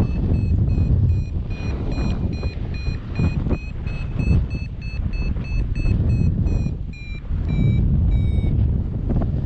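Paragliding variometer beeping in a quick, steady run of short high beeps, signalling that the glider is climbing in lift. The beep pitch creeps up a little mid-way and sags near the end, over a steady rush of wind on the microphone.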